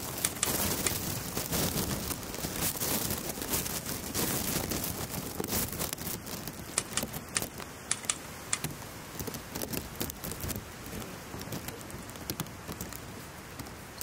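Gusty wind from an approaching typhoon, rising and falling, with many scattered sharp clicks and knocks through it.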